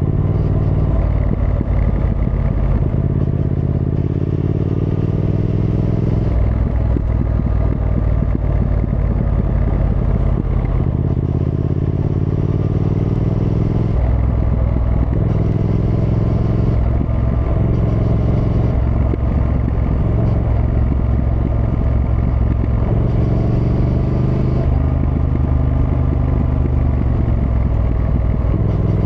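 Triumph Thruxton R's 1200 cc parallel-twin engine pulling hard through the gears, its pitch climbing in several runs and dropping back at each gear change.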